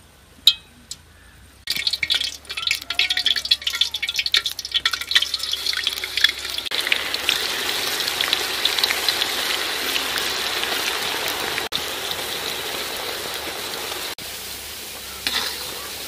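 Masala-coated cauliflower pieces deep-frying in hot oil in a large aluminium wok: a loud crackling sizzle starts about two seconds in, settles into a steady hiss, and grows quieter near the end, where there is a single metal clink.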